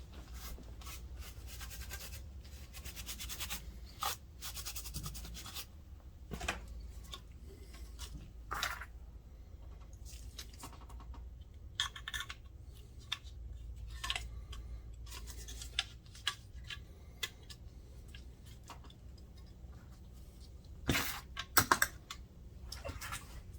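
Hands working on the opened projector: rubbing and scraping, as of dust being wiped off a part, with scattered light clicks and knocks of plastic parts being handled. A few sharper clicks come close together about 21 seconds in.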